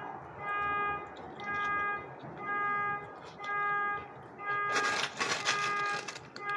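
Car alarm beeping, a steady buzzy tone repeating about once a second. About five seconds in, a loud burst of rustling noise rises over it.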